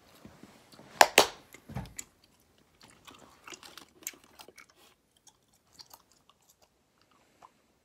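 Cinnamon gum being chewed with wet smacking and clicking mouth noises. Two loud sharp clicks come about a second in, then the smacks grow sparser and quieter.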